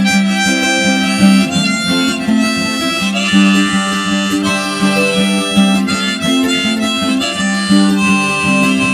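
Harmonica played from a neck rack over a strummed guitar: an instrumental harmonica break between the sung verses of a folk song.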